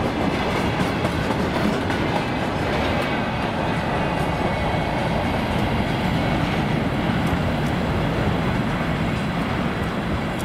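Freight train of open-top wagons rolling past on the rails, a steady rumble with scattered clicks from the wheels, easing slightly near the end as the last wagon draws away.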